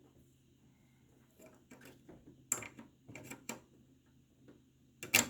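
Small plastic clicks and taps of a cable connector being handled and tried on a desktop hard drive's port, with one sharper click about five seconds in.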